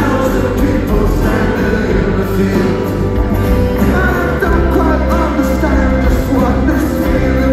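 A live rock band playing in a large arena, with acoustic guitar, keyboards and a steady bass, and a male voice singing over it.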